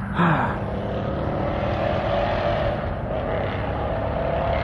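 A 2017 Mustang GT's V8 through a Borla Atak exhaust, heard at a distance as the car drives off: a steady engine note that climbs slightly and holds, still plainly audible.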